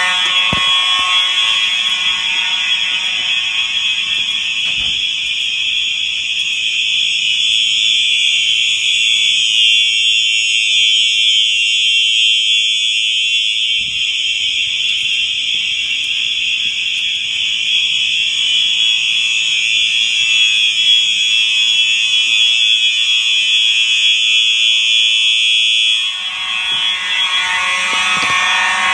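Simplex fire alarm horns sounding a loud, high-pitched alarm tone without a break during a system test. Lower tones underneath fade out in the first few seconds and come back near the end.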